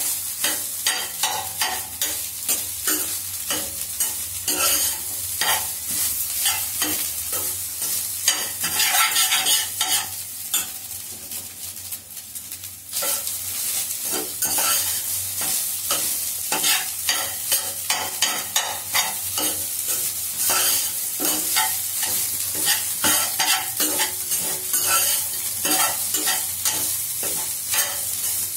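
A spatula scraping and stirring cooked rice with fried carrots around a Healux pan over high heat, in quick irregular strokes with sizzling from the hot pan. The stirring eases briefly about eleven seconds in, then picks up again.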